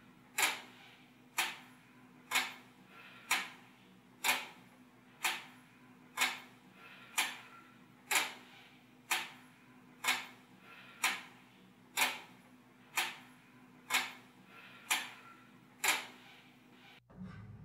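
A clock ticking about once a second in a quiet room, with a faint steady hum underneath.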